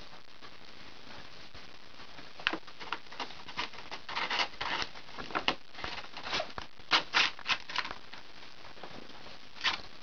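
Brown paper bag crackling and rustling in irregular bursts as a kitten shifts about inside it, with the sharpest crinkles about seven seconds in.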